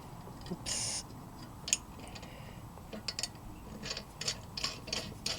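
Light metallic clicks and clinks of bolts and metal parts being handled while a vise is bolted down, with a brief scraping rattle just before a second in. The clicks come thicker and faster over the last couple of seconds.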